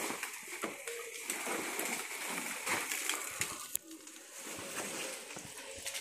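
Leaves rustling and hands and feet scraping on mango bark and branches as a man climbs the tree, with many small irregular clicks and crackles.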